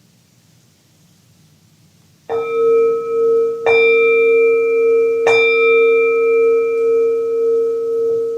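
A singing bowl struck three times, about a second and a half apart, starting a couple of seconds in. Its steady ring of several tones builds with each strike and keeps sounding.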